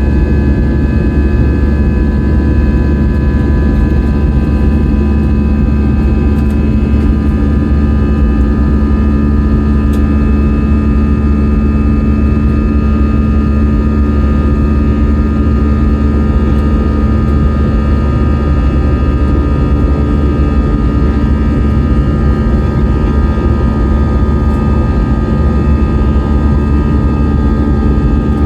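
Airliner engines and airflow heard from inside the passenger cabin: a loud, steady, unchanging rumble with a constant hum running through it.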